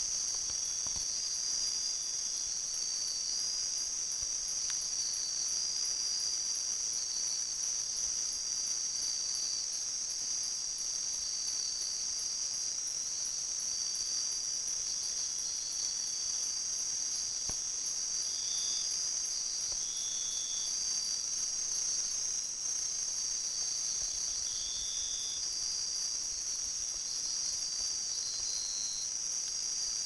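Dense chorus of jungle insects trilling steadily at a high pitch, with shorter, slightly lower buzzing calls coming and going on top of it, several of them in the second half.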